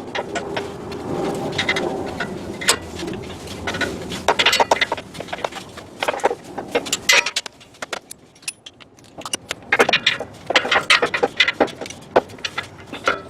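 Metal hand tools and parts clinking and clattering in irregular bursts of sharp clicks, from work on a pickup's exhaust.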